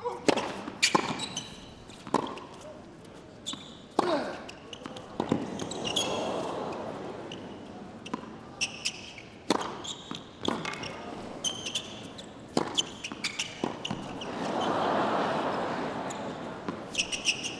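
Tennis rally on a hard court, opening with a serve: sharp racket hits and ball bounces about every second, with short rubber-soled shoe squeaks. Crowd murmur rises near the end.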